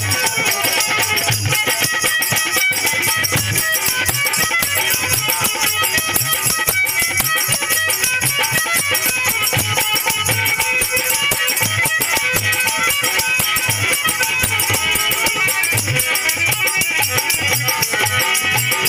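Instrumental interlude of a Hindi devotional bhajan: a harmonium plays the melody over steady dholak drum beats, with a continuous jingling from shaken hand percussion.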